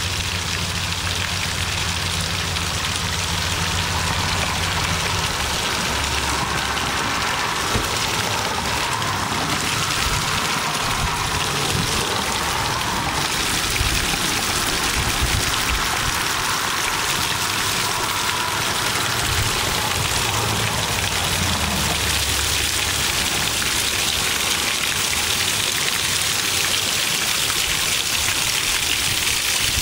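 Natural spring water splashing down a stacked-stone column onto rocks and moss, a steady rush of falling and spattering water.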